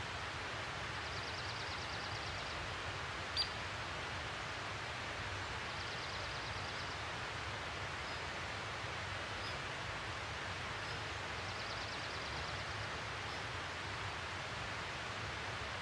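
Steady outdoor background hiss, with a faint high trill heard three times and a single short click about three and a half seconds in.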